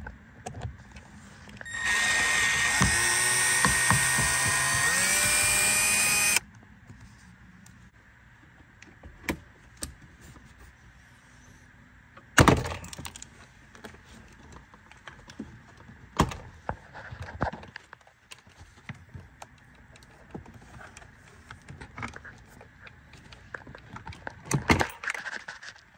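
Milwaukee cordless screwdriver running for about four seconds as it backs out a door-panel screw, its whine rising in pitch just before it stops. After that come scattered sharp plastic snaps, the loudest about halfway through and a cluster near the end: a plastic trim tool prying the door panel's push-in clips loose.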